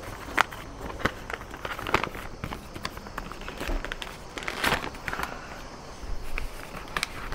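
Heavy wrapping paper and a gift box being handled and unwrapped: irregular rustling and crinkling with small clicks and knocks.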